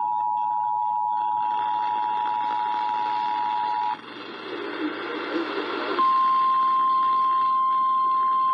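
The Emergency Alert System two-tone attention signal, two steady pitches sounding together, cuts off about four seconds in. About two seconds of radio static follow. Then the single steady, slightly higher-pitched NOAA Weather Radio warning alarm tone begins and holds.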